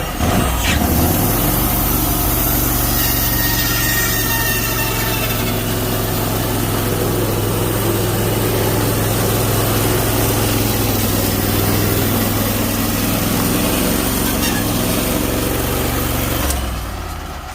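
Gasoline engine of a Wood-Mizer LT15 Wide band sawmill running steadily at speed for about sixteen seconds, then shut off and winding down near the end.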